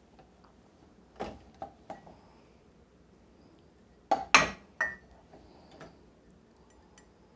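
A ceramic mug is lifted out of a dishwasher's top rack, clinking and knocking against the wire rack and the dishes beside it. There are a few light clinks about a second in, then louder knocks around four seconds in.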